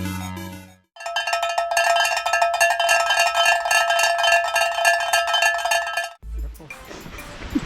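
A short tune ends, then a metallic bell-like sound rings in a fast, even roll for about five seconds and stops abruptly. After that comes outdoor wind noise.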